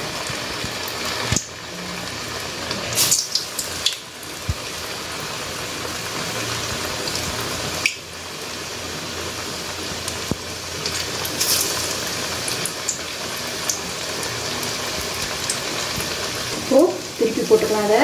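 Green gram sprout vadas deep-frying in oil in an aluminium kadai on low heat: a steady sizzling hiss with a few light crackles. A brief voice comes in near the end.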